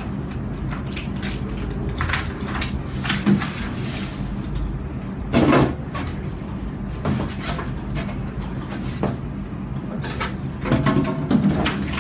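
A large paper sheet being handled and pressed flat against a whiteboard: irregular rustles and light taps, the loudest a short rustle about five and a half seconds in, over a steady low hum.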